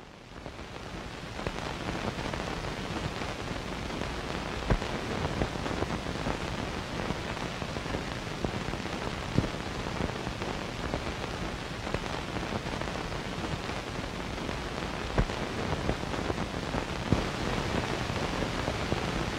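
Steady hiss with a few sharp pops scattered through it, fading in over the first second or so.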